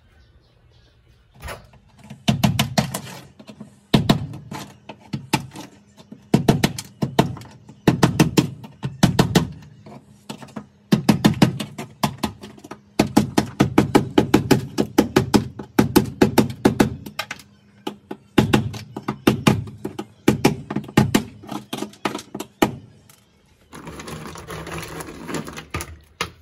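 Hammer striking a screwdriver used as a chisel, chipping brittle old sound-deadening mat off a car's steel floor pan, in quick runs of strikes with short pauses between. Near the end, a rustle of the loose broken pieces being gathered.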